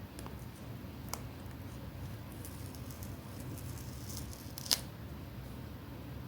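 Paper being handled: faint rustling with a short click a little after a second in and a sharper, louder click about three-quarters of the way through, over a steady low hum.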